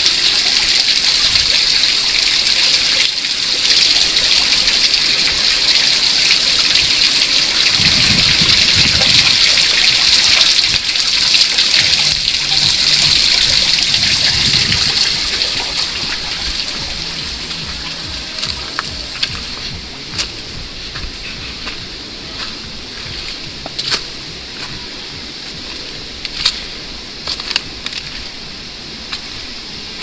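Water rushing and splashing at a small forest waterfall and stream, a steady hiss that is loud for the first half and then grows fainter. Scattered sharp clicks come through in the second half.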